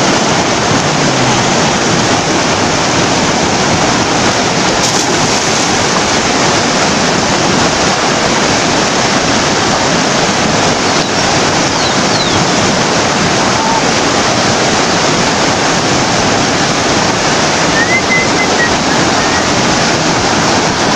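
Loud, steady rushing of a fast-flowing, muddy river tumbling over rocks.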